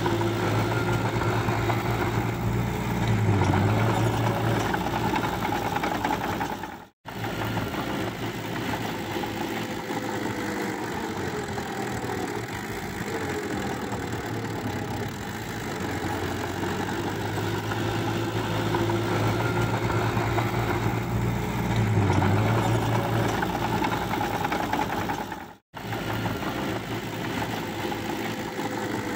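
Small Hitachi crawler bulldozer's diesel engine running steadily as it pushes mud with its blade. The sound cuts out briefly twice.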